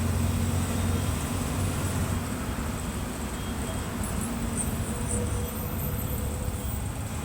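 Mercedes-Benz OF-1721 bus's inline-six turbodiesel running with a steady low drone, which eases off about two seconds in and carries on more quietly under road noise.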